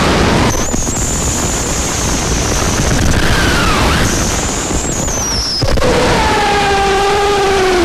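Harsh noise music made with modular electronics and cut-up editing: a loud, dense wall of distorted noise. A high thin whine is held through the first two-thirds, tones bend down and back up in the middle, and lower wavering tones come in near the end.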